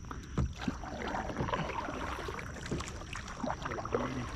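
Water splashing and dripping, with a few light knocks against the boat, as a caught bass is handled and let back into the lake.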